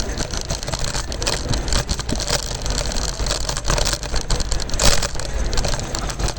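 Kick scooter rolling over rough pavement: a steady rumble with constant clicking and rattling, and one sharp crack about five seconds in as a wheel runs over a stick.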